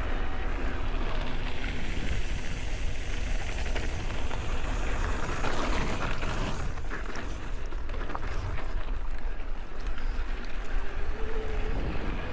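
Wind rushing over the microphone and mountain bike tyres rolling over a dirt track, with a few short clatters from the bike on rough ground.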